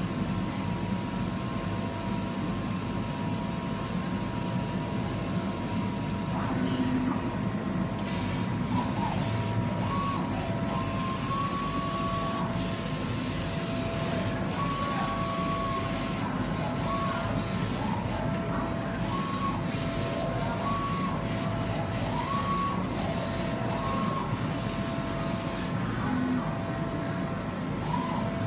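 KASU laser cutter's gantry and laser head moving as it cuts printed fabric. Its drive motors whine in short tones that step and break off over and over as the head traces the cut paths, over a steady rush of air.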